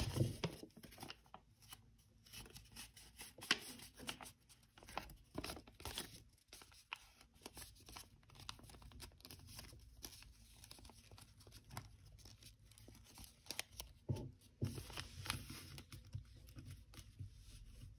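A sheet of 80 gsm origami paper being folded and creased by hand, giving faint, irregular crinkles and crackles as flaps are reverse-folded and pressed flat.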